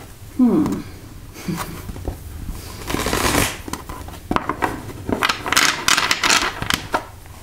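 A tarot deck being riffle-shuffled by hand on a wooden table: a fluttering burst of cards about three seconds in, then a run of short riffles and clicks as the halves are pushed together and the deck is squared. A brief low falling sound comes just before.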